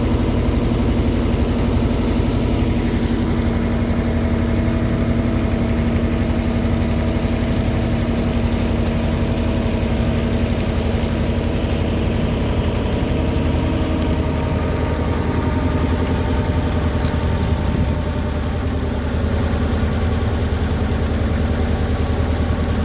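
A river boat's engine running steadily, its note shifting slightly about halfway through.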